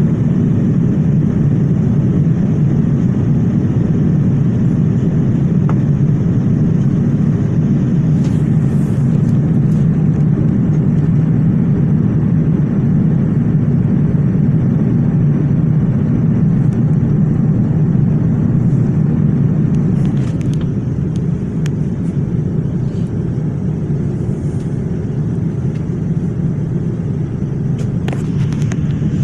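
Steady low rumble of jet airliner engines, easing slightly about two-thirds of the way through.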